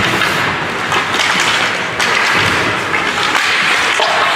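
Ice hockey play in an indoor rink: skates scraping on the ice, with the occasional knock of sticks and puck.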